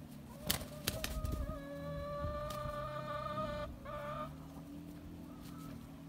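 Roosters scuffling: a few sharp wing flaps, then one rooster gives a long, drawn-out, steady call lasting about two and a half seconds, followed by a short second note.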